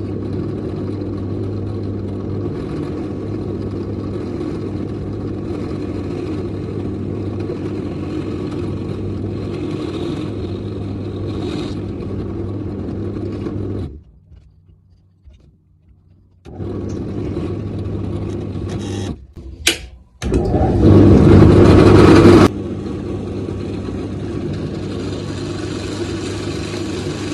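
Electric drill running steadily as it drills through a bolt. It stops for about two seconds midway and starts again, with a much louder, rougher stretch of about two seconds later on.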